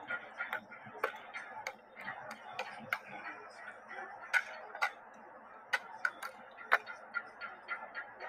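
Cadets' drill rifles being handled in unison drill movements: a dozen or so sharp clacks and slaps of hands on rifles, unevenly spaced, over a faint background murmur.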